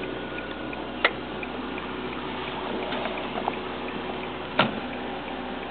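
Cabin noise of a Nissan Skyline coupe on the move: steady engine and road noise, with faint regular ticking in the first half and two sharp clicks, about a second in and near the end.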